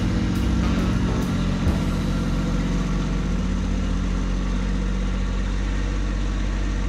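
Kubota B2601 compact tractor's three-cylinder diesel engine running steadily at low throttle as the tractor drives forward.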